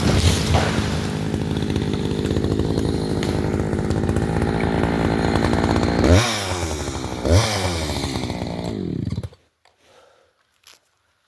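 Chainsaw running under load, cutting into a maple tree, revving up twice with the pitch falling back each time, then shut off suddenly about nine seconds in.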